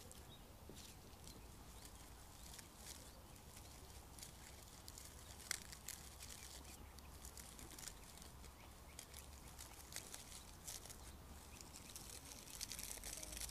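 Faint rustling and crackling of dried straw flowers and their wire stems being worked into a grapevine wreath, with one sharper click about halfway through.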